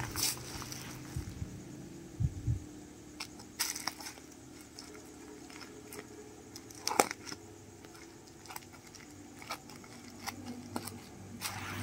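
Black bubble-wrap plastic parcel being handled and cut open with scissors: scattered crinkles and crackles of the plastic, with a few low thumps early on and one sharp click about seven seconds in, the loudest.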